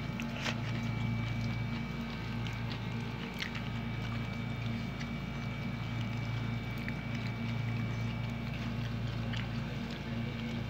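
Steady low mechanical hum with a faint steady high whine over it, and a few light ticks and rustles as hands work through rice on foil and plastic sheeting.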